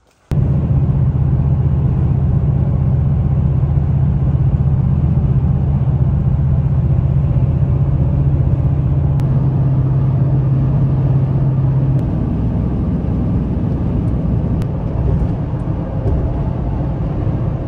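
Toyota Tundra pickup driving at highway speed, heard from inside the cab as a steady low drone of engine and road noise. It starts abruptly, and its tone shifts slightly about twelve seconds in.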